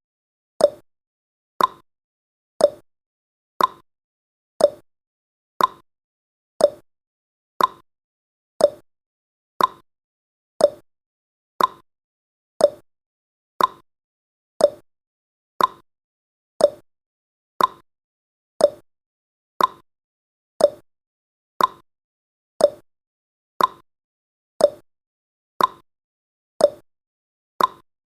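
Clock tick-tock sound effect marking the seconds of a countdown timer: one sharp tick each second, alternating between a higher tick and a lower tock.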